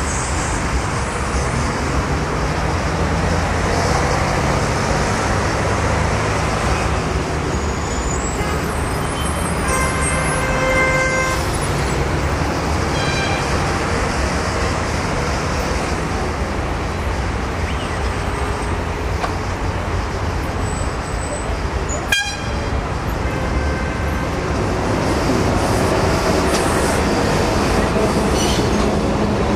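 Street traffic noise as an articulated tram approaches along the track and runs past close by, its rumble growing louder near the end. A horn sounds once, for about a second and a half, about ten seconds in, and there is one sharp click a little past twenty seconds.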